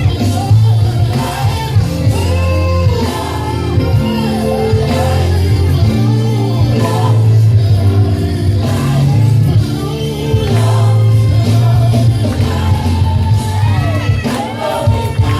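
Live gospel praise music: singers with a band, strong bass and drums, in a large hall.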